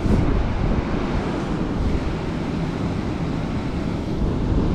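Steady rush of white water pouring over a river spillway.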